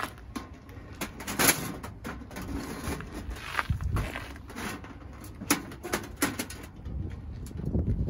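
Strong wind buffeting the microphone as a steady low rumble, with irregular rustles and clicks.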